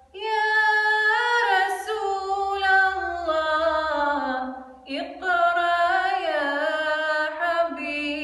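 A solo female voice singing a Bosnian kasida, a Muslim devotional song, unaccompanied. She holds long ornamented notes that slide between pitches, with a brief breath about five seconds in before a rising phrase.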